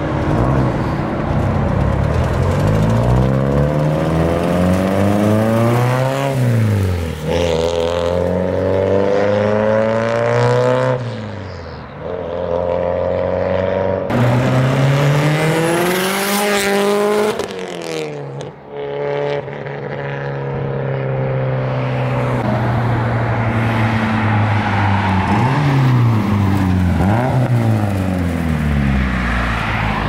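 Car engine accelerating hard, its pitch climbing and then dropping several times as it shifts up through the gears, with the car passing close by about halfway through.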